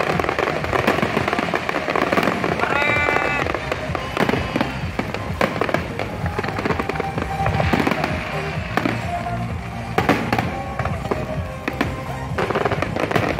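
Aerial fireworks bursting in a dense, irregular run of bangs and crackles, with music playing alongside.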